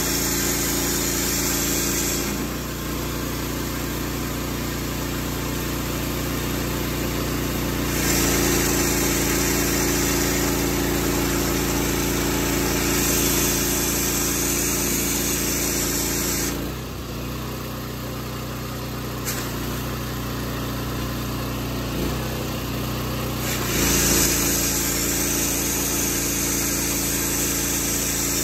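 Direct-drive gas pressure washer running steadily, its engine note under the hiss of the high-pressure water jet from the wand. The spray hiss drops away twice for several seconds, and the engine note shifts as it does.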